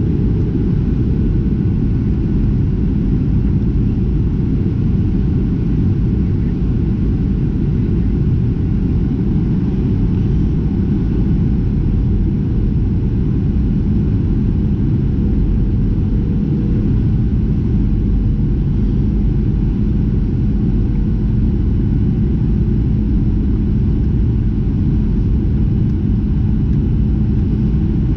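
Steady, loud cabin rumble of a Boeing 737-700 with its CFM56-7B jet engines running, with a faint steady hum under it.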